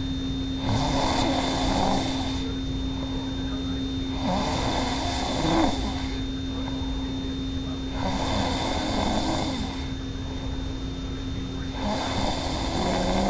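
A woman snoring heavily in her sleep: four long snores, each about a second and a half, coming about every four seconds with each breath, over a steady hum.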